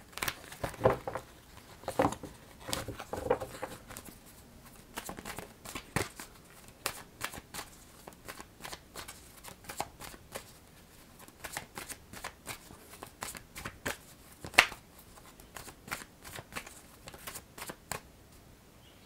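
A tarot deck being shuffled by hand: a long run of irregular, quick card flicks and slaps, with one sharper slap about two-thirds of the way through.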